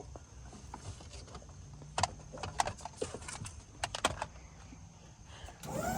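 A few light clicks and rattles from small objects being handled. Near the end, the electric hydraulic pump of a pickup's dump-bed insert starts up with a steady hum.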